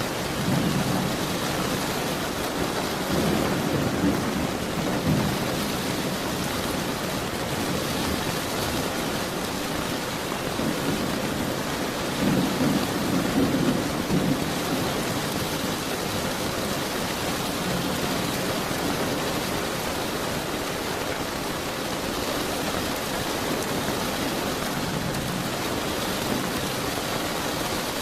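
Steady rain with low rolls of thunder swelling up several times, the strongest in the middle.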